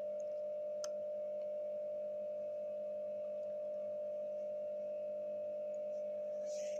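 A steady hum at one unchanging pitch, with a fainter lower tone under it. There is a faint click about a second in and a brief soft rustle near the end, as of fingers on the book's paper.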